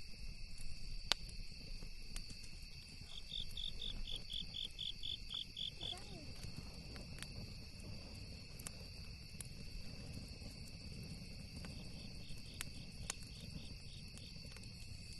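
Crickets trilling steadily, with runs of quick, evenly spaced chirps, about four a second, lasting a few seconds. Scattered sharp crackles from a campfire and a low rumble lie underneath.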